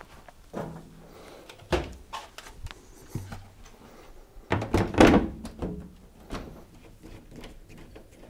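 Sheet-metal top panel of a tumble dryer being set onto the cabinet and pushed into place: a series of dull thunks and knocks, the loudest cluster about five seconds in.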